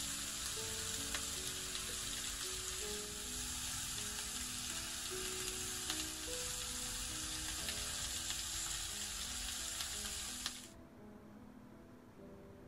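Wagyu beef steak sizzling steadily in a hot red copper pan, over soft background music. The sizzle cuts off suddenly near the end, leaving only the music.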